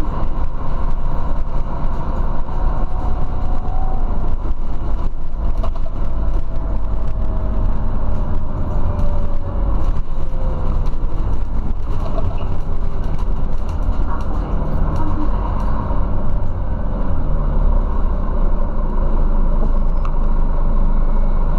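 Scania CityWide Euro 6 city bus with a ZF automatic gearbox, heard from inside the passenger cabin while driving: a steady low engine and road rumble. A faint whine slowly falls in pitch from about four to eleven seconds in.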